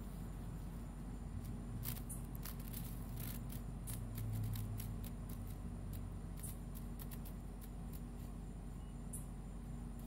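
Scattered brief rustles and crackles of dry leaves and weeds as a kitten paws at a cicada on the ground, over a steady low hum.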